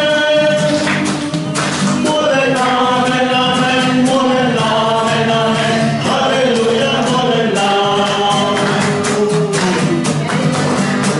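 A man singing into a microphone, joined by a second male voice, over a strummed acoustic guitar.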